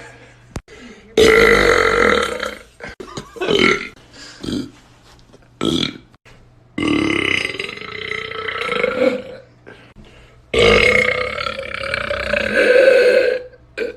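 A person burping loudly: three long, drawn-out burps, the last about three seconds long, with a few short sounds between them.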